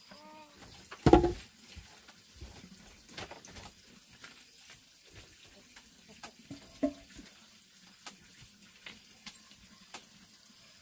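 A short animal call at the very start, then one loud, heavy thump about a second in, followed by scattered light clicks and knocks of household work.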